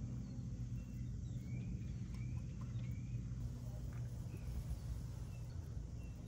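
A few faint, short, high chirping calls from a small animal, spread over a few seconds, over a steady low hum.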